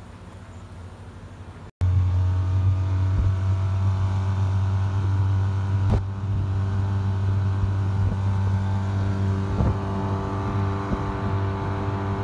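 Small outboard motor pushing an inflatable dinghy, a steady drone that cuts in abruptly about two seconds in after faint outdoor background noise.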